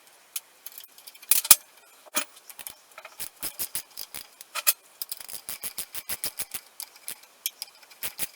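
Metal clinks and clicks of hand tools and bolts while the engine mounting bolts of a BSA B31 motorcycle are being taken out: a few sharp knocks early, then a run of light, fairly regular ticks about three a second.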